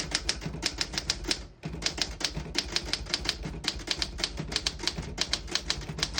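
1956 Olympia SM1 manual typewriter being typed on at a steady pace, the typebars striking several times a second, with a brief pause about a second and a half in.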